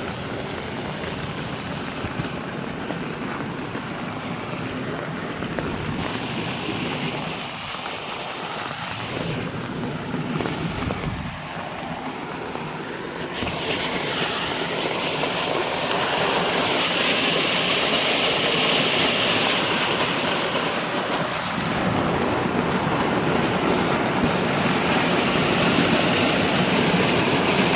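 Waterfall rushing, a continuous noise of falling water that grows louder about halfway through.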